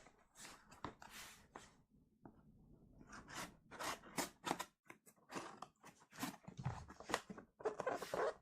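Packaging being handled and torn open: a run of short, irregular rustles and tears.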